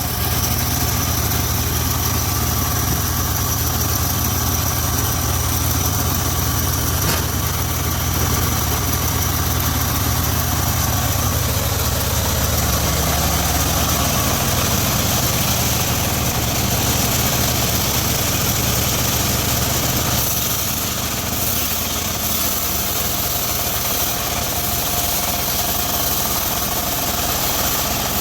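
Engine of a homemade circular sawmill running steadily, with a steady high whine over its low rumble; the low rumble eases about twenty seconds in.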